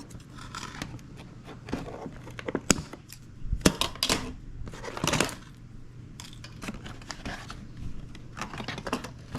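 Packaging being cut and handled to free a small RC truck from its box: scattered sharp snips and clicks with short bursts of plastic and cardboard crinkling, the loudest a little past the middle.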